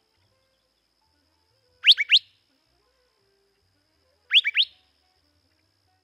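Curve-billed thrasher giving its sharp 'whit-wheet' call: a quick group of rising whistles, heard twice, about two and a half seconds apart.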